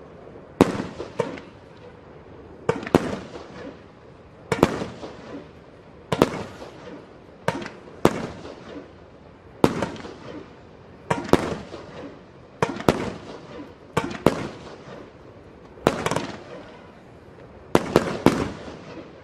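Small mortar-fired fireworks shells going off one after another, a sharp bang every second or two, some in quick pairs, each trailing off in a fading crackle.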